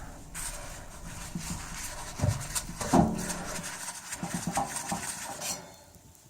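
Metal clattering and scraping as the sheet-metal blower assembly of an air conditioner air handler is handled and worked loose, with a person's short grunts and heavy breathing in between.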